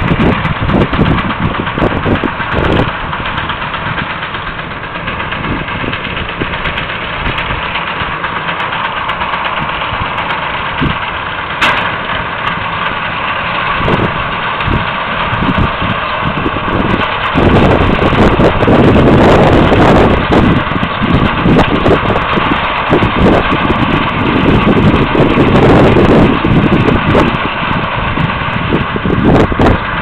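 Tractor engine running steadily while it powers a New Holland combi round baler-wrapper, with the machinery's hum held steady. Wind buffets the microphone in heavy gusts, loudest in the second half.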